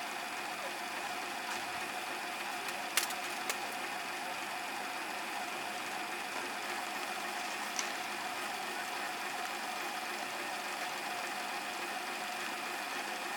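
A small motor running at a steady pitch, starting and stopping abruptly, with a few sharp clicks about three seconds in and again near eight seconds.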